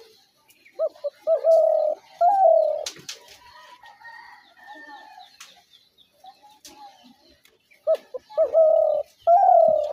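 Spotted dove calling twice, each phrase a few quick short coos followed by two longer coos, the last one falling in pitch. Faint chirps from other birds come between the two phrases.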